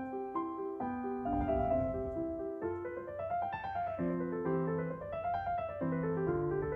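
Background piano music: a soft, evenly paced run of notes with no voice over it.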